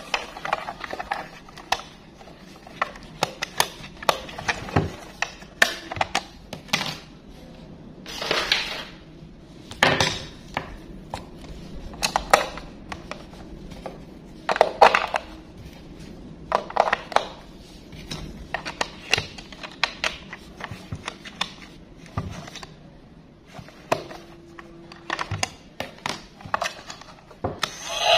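Irregular light plastic clicks, taps and rattles from a toy bus being handled, its battery compartment opened and AA batteries slotted in and pressed into place, with a few brief rustling scrapes.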